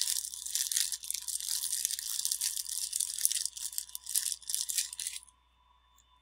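Plastic packaging crinkling and rustling as it is handled, with irregular crackles, stopping abruptly about five seconds in.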